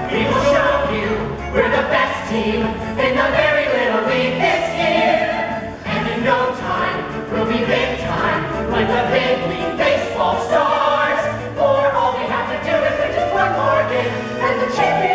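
A group of voices singing together in chorus over a musical accompaniment.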